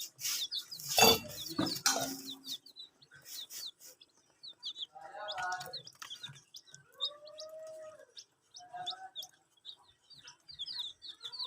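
Baby chicks peeping constantly: short, high, falling chirps, several a second. A few knocks sound in the first two seconds, and a few lower drawn-out calls come in the second half.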